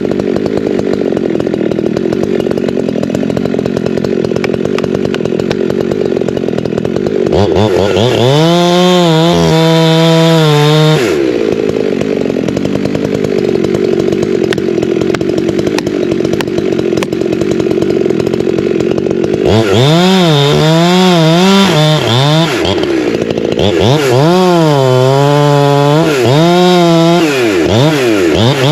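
Holzfforma G372XP Pro two-stroke chainsaw running at a lower speed, then revved up to high speed three times: once briefly and twice for several seconds with the pitch wavering up and down. It drops back between revs while cutting into a large tree being felled.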